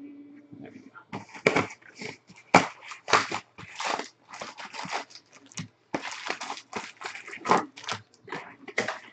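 Foil wrappers of 2015 Bowman Jumbo baseball card packs crinkling and being torn open by hand, in a quick, irregular run of crackles and rips.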